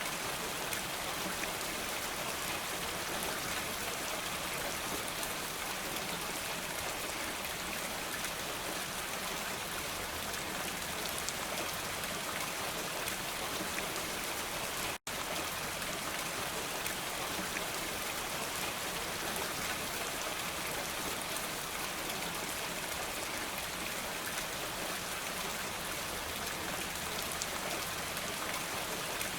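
Steady, dense rain falling, an even hiss with no thunder. It cuts out for an instant about halfway through, the kind of gap where a looped recording joins.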